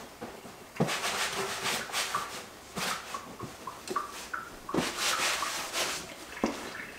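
A cloth dish towel rubbing over a wet white plastic cutting board as it is dried: a run of brushing swishes, with a few short high squeaks around the middle.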